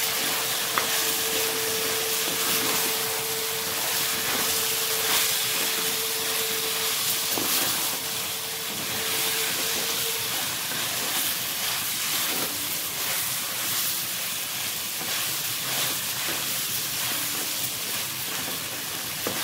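Chicken pieces with onions and spices frying in a clay pot while a spatula stirs them: a steady sizzling hiss with scraping strokes. A steady tone runs through the first half and stops about ten seconds in.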